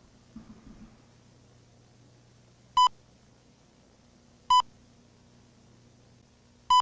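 Three short, identical electronic beeps, about two seconds apart, over a faint low hum. They are the on-screen beeps of an analog-horror VHS tape, marking each new line of text as it appears on a title card.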